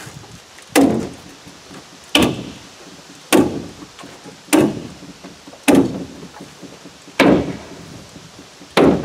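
Hammer stapler driving staples through plastic sheeting into OSB wall form panels: seven sharp whacks, about one every second and a half.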